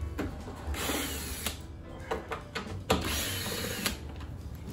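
Power drill-driver running in two bursts of about a second each, backing out the 10 mm hex-flange screws that hold a headlight assembly to the body.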